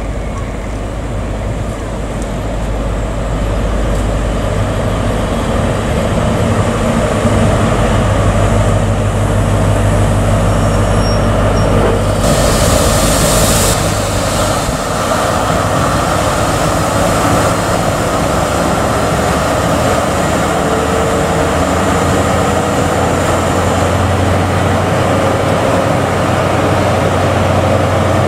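Class 43 HST power car's MTU diesel engine running at the platform in a steady drone, with a loud hiss lasting about a second and a half near the middle. Over the last ten seconds the engine note rises slowly as the train starts to move off.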